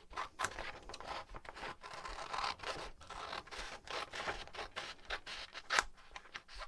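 A folded sheet of paper being cut in half: a quick run of crisp cutting and rustling strokes, the loudest a little before the end.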